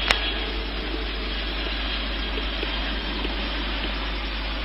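Steady, even rush of jet engine noise from a landing Boeing 747-400 freighter, with a single sharp click just after the start.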